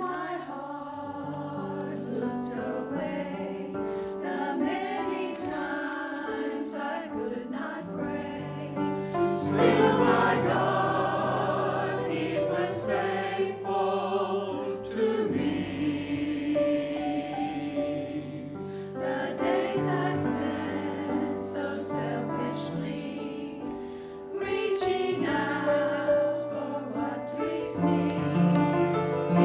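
Mixed adult church choir singing in several parts. It swells louder about ten seconds in and again about five seconds before the end.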